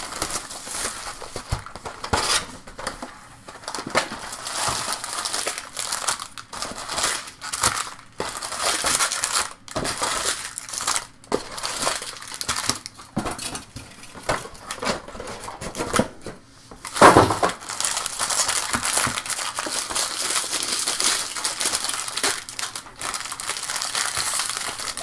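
Crinkling and crushing of plastic and foil packaging as a sealed box of trading cards is opened and its foil packs are handled, in irregular bursts with one louder crunch about two-thirds of the way through.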